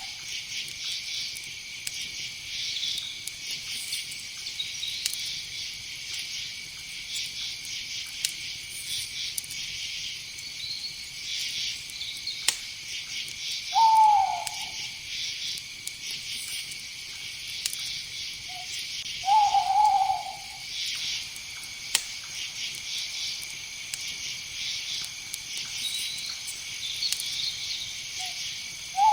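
Night insect chorus of crickets trilling steadily, with an owl hooting: one short, slightly falling hoot about halfway through, a longer hoot a few seconds later, and another starting right at the end.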